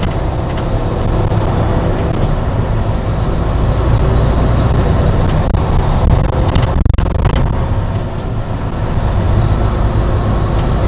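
Steady low engine and road rumble inside a semi-truck's cab while driving on the highway.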